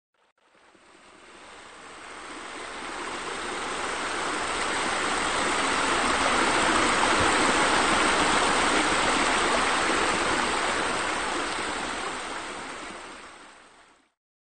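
Water splashing steadily from a small rock waterfall into a pool, an even rush that fades in slowly, is loudest midway, and fades out near the end.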